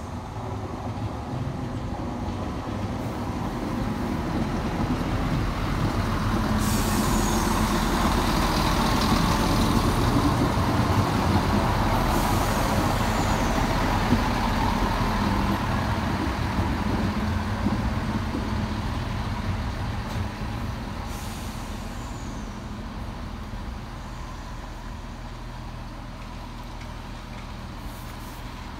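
Class 170 Turbostar diesel multiple unit coming into the station. Its diesel engines and the wheels on the rails grow louder as it approaches, are loudest as the carriages pass close by, then fade as it moves away along the platform. A few short high hisses come through near the middle.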